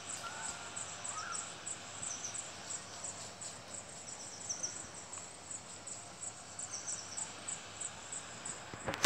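Insects chirping in a steady high-pitched pulse, about three chirps a second, over a quiet outdoor background.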